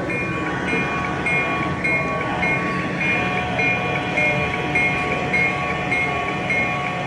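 Sound decoder of an HO scale ScaleTrains SDL39 model diesel locomotive playing its diesel engine running sound through the model's small speaker, with a high ring repeating about twice a second over a steady rumble.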